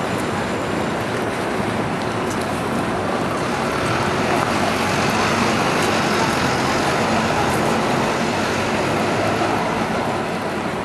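City street ambience: a steady wash of road traffic noise.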